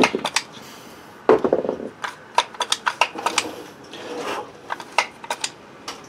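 Ford F-250 automatic locking hub turned and worked by hand: irregular metallic clicks and clatter from its gears and locking parts, with a couple of short scraping rubs, as freshly applied silicone lubricant is worked into the mechanism.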